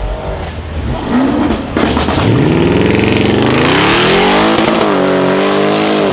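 Audi RS6 Avant C7's twin-turbo V8 through a straight-pipe exhaust, accelerating hard. The engine note climbs steadily in pitch for about two seconds, then holds near the end before cutting off suddenly.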